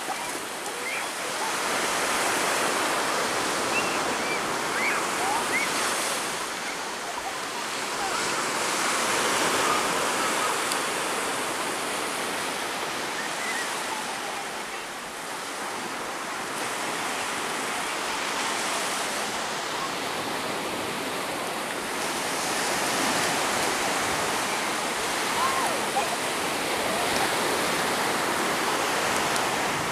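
Sea waves breaking and washing on a beach: a steady hissing wash that swells and eases every several seconds.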